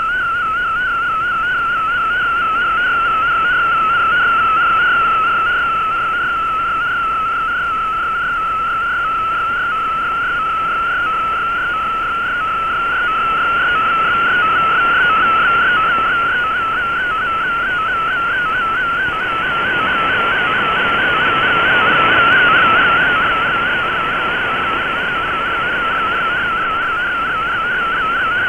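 MFSK picture transmission from the Shortwave Radiogram broadcast received on shortwave AM: a single warbling tone that wavers rapidly up and down in pitch as the image data is sent. Static hiss lies under it and swells for a few seconds about two-thirds of the way in as the signal fades.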